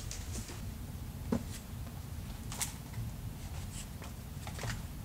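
Quiet room tone: a steady low hum with a few faint, short clicks and rustles spread through it.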